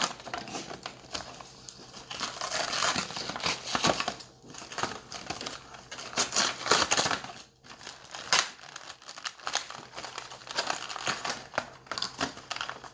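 Plastic toy packaging being crinkled and torn open by hand, in irregular crackling rustles.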